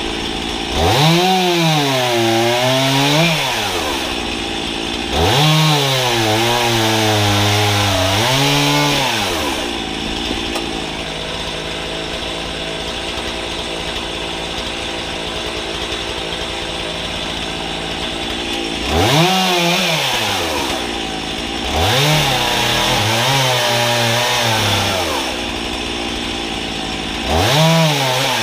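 Two-stroke chainsaw mounted on a homemade guillotine frame, revved up five times to cut logs into firewood lengths, its pitch sagging under load in each cut. Between cuts it idles steadily, with a long idle in the middle.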